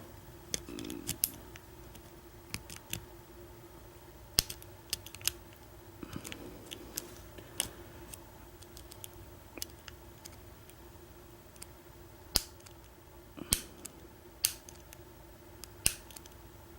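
Lock pick and tension wrench working the pin stack of an American 1100 padlock held in a false set: irregular sharp metallic clicks as the pins are probed for spools, with a few louder clicks near the end.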